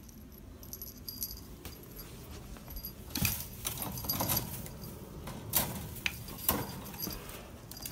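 Small bell on a pet prairie dog's collar jingling lightly as the animal is handled, with several rattling clacks from a wire cage and its door.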